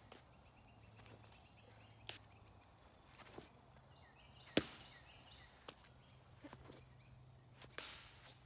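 Faint footsteps and shuffling on grass and fallen leaves, with a few sharp knocks, the loudest about halfway through, and faint bird chirps.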